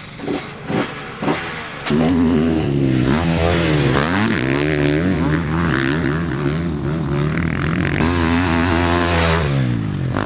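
Husqvarna dirt bike engine: three quick throttle blips, then running hard about two seconds in, the engine speed rising and falling over and over before dropping away near the end.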